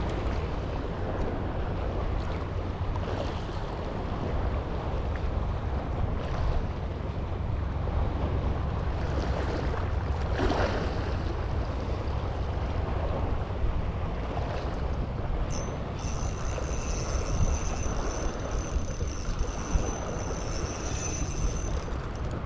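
Wind buffeting the microphone over the wash of sea waves, a steady low rumbling hiss. Near the end, faint high steady tones join in.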